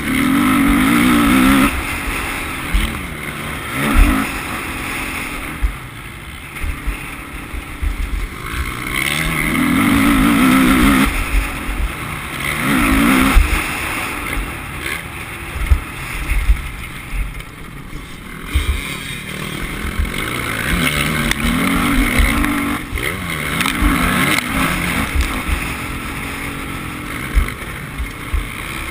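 Motocross bike engine revving hard and easing off again and again, its pitch rising and falling every few seconds through the track's corners and jumps. Heard from a camera mounted on the bike, with wind rumble and knocks from the rough ground.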